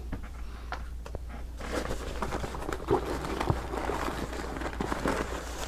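Backpack being handled and rummaged through: fabric rustling and crinkling with small clicks and knocks, getting busier after about a second and a half.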